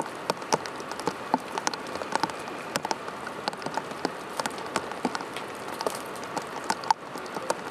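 Wood fire burning in an open fire pit, crackling with a dense, irregular run of sharp pops and snaps, one louder pop near the end.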